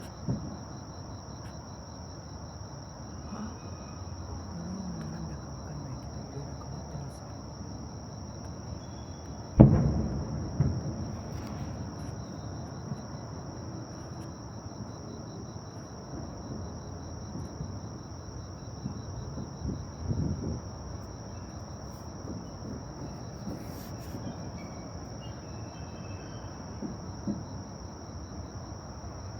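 Steady high chirring of crickets or similar insects over a low outdoor murmur. About a third of the way in comes a single loud boom, followed a second later by a smaller one, and a softer thud near two-thirds of the way through.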